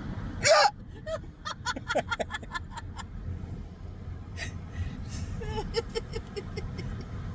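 A person's loud hiccup about half a second in, followed by stifled giggling in quick short bursts, twice.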